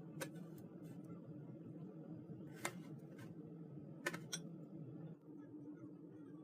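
Scattered short, light clicks and taps, about eight in all, in three small clusters over a steady low hum.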